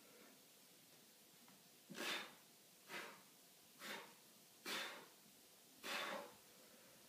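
A man breathing out hard with each push-up: five short, forceful exhalations about a second apart, starting about two seconds in.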